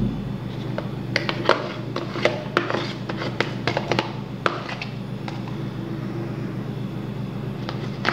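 A spatula scraping and tapping finely chopped vegetables out of a mini food chopper's bowl into a frying pan: a run of light clicks and taps, thickest in the first half and sparser after.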